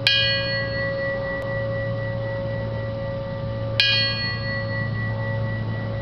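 A hand-rung fire-service bell on a stand, struck twice just under four seconds apart, each strike ringing on with a long sustained tone. These are strikes of the 5-5-5 signal, the traditional announcement of a firefighter's death in the line of duty.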